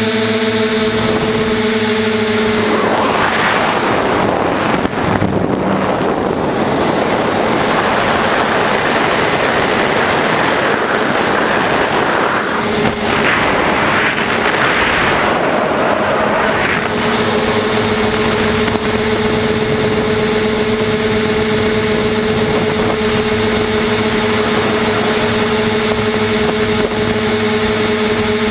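Bluebird tricopter's motors and propellers running with a steady hum, heard from the camera mounted on the craft. From about three to seventeen seconds in, a rushing noise mostly covers the hum, which then comes back steady.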